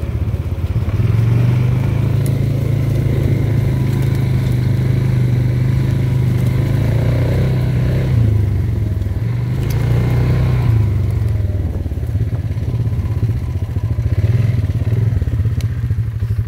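Small off-road vehicle's engine running steadily while riding a trail, the revs easing off and picking back up a couple of times around the middle.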